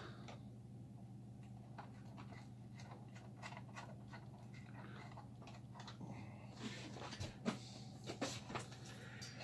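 Faint, steady low electrical hum with scattered light clicks and taps from handling cables and parts, the taps coming more often in the last few seconds.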